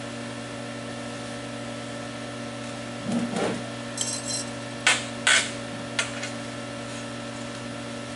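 Metal workpieces and tools handled on a steel welding table. A dull thump comes about three seconds in, then a brief metallic ring, two sharp metal knocks close together and a lighter click, all over a steady electrical hum.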